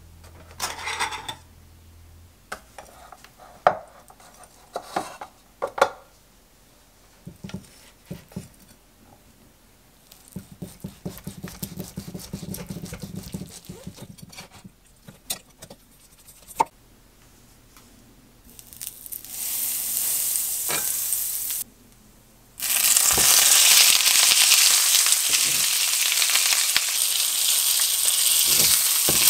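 Scattered clicks and knocks of kitchen handling, then a thick steak dropped into a hot frying pan and sizzling. A short burst of sizzle breaks off briefly, then a loud, steady sizzle runs on. The steak is already cooked through and is being seared only to brown the outside.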